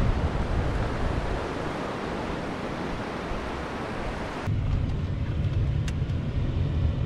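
Ocean surf and wind noise on the microphone. About four and a half seconds in, the sound cuts off suddenly and a steady low rumble takes its place.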